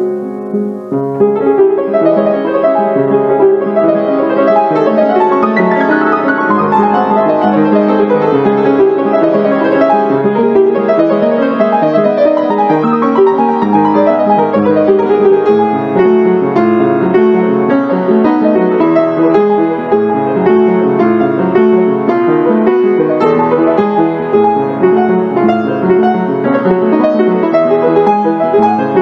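Background instrumental piano music, a continuous flow of notes.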